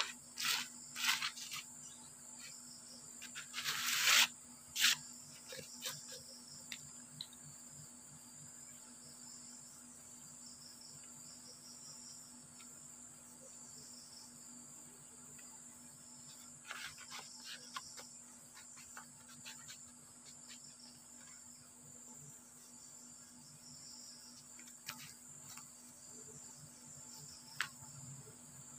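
Insects chirring steadily, with a continuous high, pulsing drone. A few brief handling and rubbing noises come over it, the loudest about four seconds in and another short cluster around halfway.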